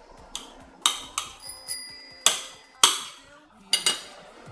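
A kitchen knife clinking against a ceramic plate as potatoes are cut into chunks: about seven sharp clinks, the loudest two and three seconds in. A brief high ringing tone sounds in the middle.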